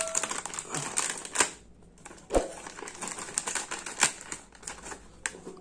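Plastic snack packet crinkling and crackling as it is opened, with a few sharp clicks.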